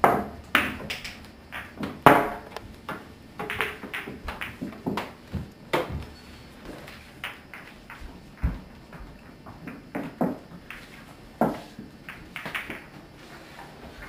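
Pool balls clacking against one another as they are gathered and set into the rack, with many irregular sharp knocks.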